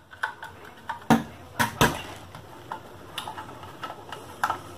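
Metal cover of a PowMr MPPT 60A solar charge controller being unscrewed and handled with a screwdriver: a handful of sharp, irregularly spaced metallic clicks and knocks.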